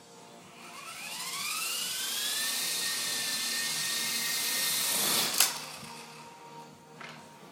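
Electric motors of a small Lama RC helicopter spooling up with a rising whine about a second in, then holding a steady high whine in flight. About five seconds in there is a sharp knock, and the whine dies away.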